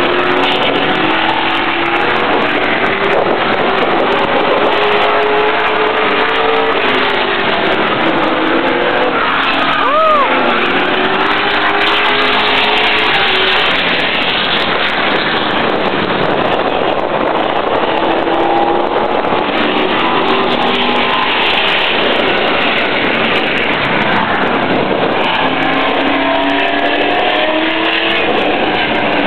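Late model race cars running laps on an oval track, engines loud and steady, their pitch rising and falling again and again as the cars accelerate and pass.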